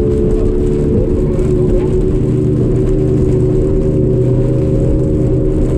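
A 150 hp Evinrude E-Tec two-stroke outboard running hard at racing speed, heard from on board. Its pitch holds steady over a rough rumble of hull and water noise.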